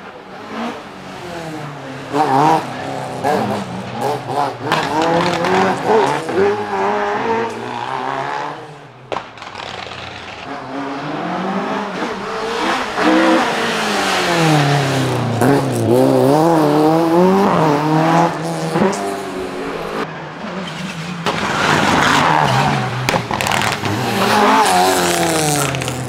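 Rally cars at full throttle on a tarmac stage, several passes one after another: engines revving up and down through gear changes, loudest as each car goes by.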